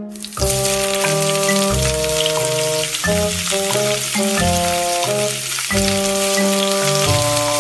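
Food sizzling as it fries in a hot pan, with the sizzle starting about half a second in, under background music.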